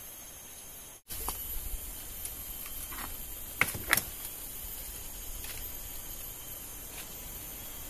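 Steady high-pitched insect buzz of the rainforest, with a couple of sharp knocks and rustles near the middle as a woven bamboo fish trap is handled and set in a small stream.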